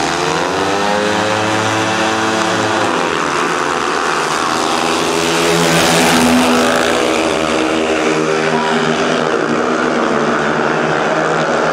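Speedway motorcycles' 500 cc single-cylinder methanol engines racing round the track, their pitch rising and falling as the riders open and shut the throttle through the bends. The sound grows loudest about six seconds in as the bikes pass close.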